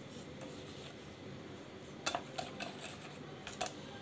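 Hands rubbing turmeric and salt into rohu fish steaks on a stainless steel plate. The first half is quiet. From about halfway in, a handful of light clicks and taps of fingers and fish against the metal plate.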